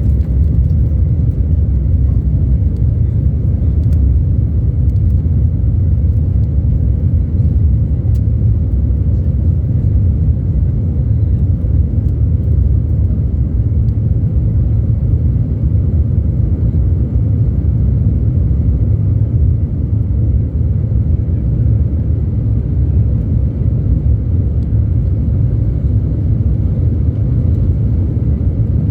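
Embraer E190's two GE CF34-10E5 turbofans at takeoff thrust, with the landing gear rumbling over the runway during the takeoff roll, heard from inside the cabin as a loud, steady low rumble.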